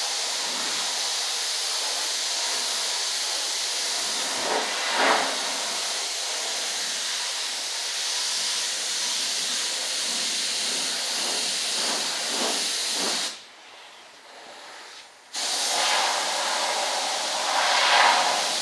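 Compressed-air paint spray gun hissing steadily while spraying dark green camouflage paint. It stops for about two seconds about two-thirds of the way through, then resumes, with brief louder swells.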